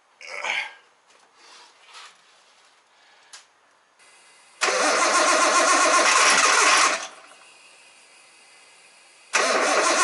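Nissan RB25DET turbocharged straight-six being started: a loud burst of about two seconds that drops away, then a second start attempt near the end that keeps going. A few faint knocks come before it.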